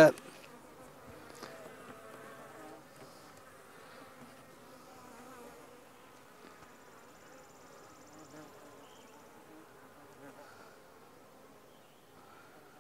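Honey bees from an opened nuc buzzing in a steady, faint hum while their frames are lifted out for inspection.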